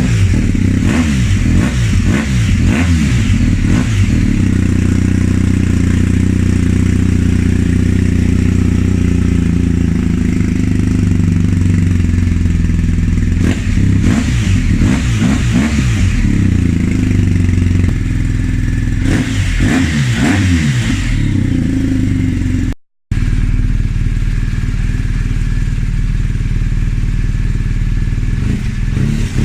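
BMW R1250GS Adventure's boxer twin idling, with quick throttle blips revving it up and back down in clusters near the start, about halfway and about two-thirds through. After a brief break in the sound about three-quarters through, it settles back to a steady idle.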